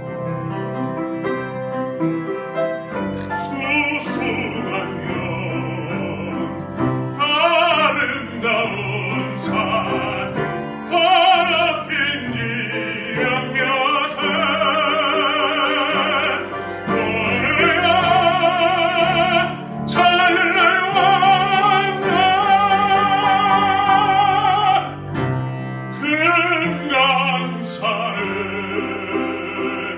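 A man singing in operatic style with strong vibrato, accompanied by piano; the piano plays alone at first and the voice comes in about three seconds in.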